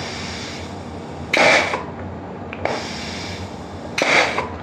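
Pneumatic solenoid valve cycling an air cylinder, its exhaust ports fitted with brass sintered exhaust silencers: a steady hiss of escaping air, a few sharp clicks of the valve switching, and two louder half-second puffs of exhaust air, about a second and a half in and again near the end. The silencers keep the exhaust noise considerably reduced.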